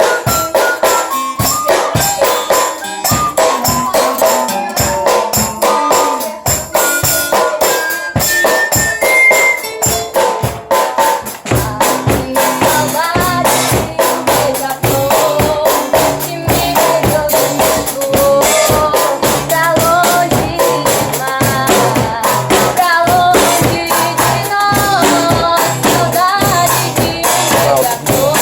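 A small percussion group playing a piece live: fast, dense hand-percussion strokes with a melody stepping upward over them. About twelve seconds in, a bass line joins and a sliding melody line carries on above the rhythm.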